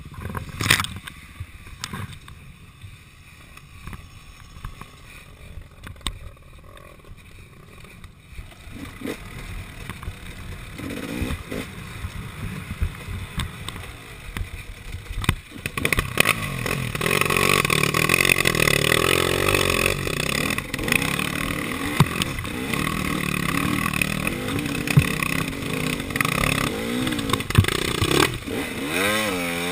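KTM 300 XC two-stroke dirt bike engine, running low and quiet at first, then louder under throttle from about halfway, with the pitch rising and falling as it is revved near the end.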